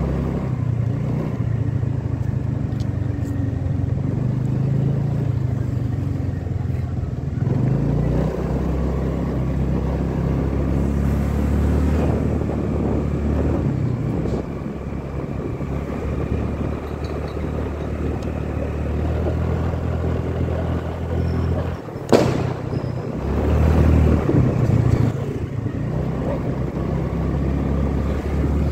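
Small motorbike engine running under way, its pitch rising and falling with the throttle, over road and wind noise. A single sharp bang comes late on.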